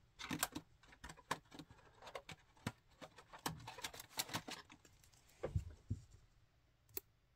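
Faint rustling and clicking of a trading card and a soft plastic penny sleeve being handled, the card slid into the sleeve. The rustles die away about six seconds in, with one more click near the end.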